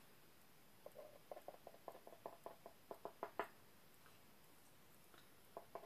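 Faint quick taps, several a second, of a small tool dabbing acrylic paint onto a tray. The taps start about a second in, stop after a couple of seconds, and start again near the end.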